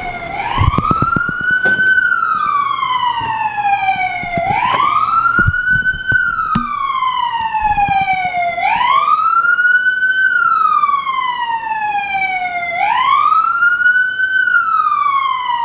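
Police car siren on a wail: its pitch climbs quickly, then slides slowly back down, repeating about every four seconds, four times over.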